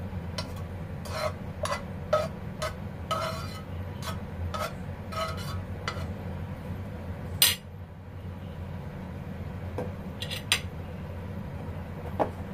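Metal spoon clinking and scraping against a nonstick wok while stirring, about two taps a second, with one louder clack about halfway through and a few scattered taps later. A low steady hum runs underneath.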